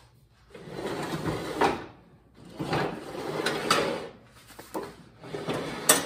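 Riding mower's steel cutting deck dragged out from under the tractor across a concrete floor in three pulls, scraping, with sharp metal clanks, the loudest near the end.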